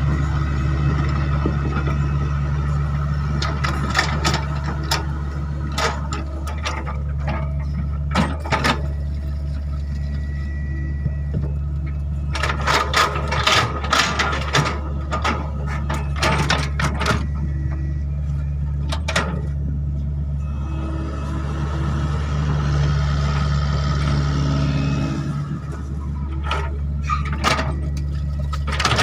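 Hydraulic excavator's diesel engine running steadily under work, with repeated clanks and knocks that come in clusters as the machine works.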